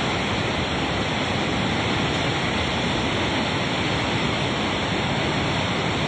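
A river in flood, its fast floodwater rushing in one steady, unbroken noise.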